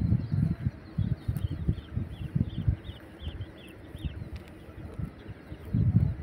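Used jute gunny sacks being pulled and flapped over by hand, making irregular dull rustling thumps. In the middle a bird repeats a short high chirp about eight times, roughly three a second.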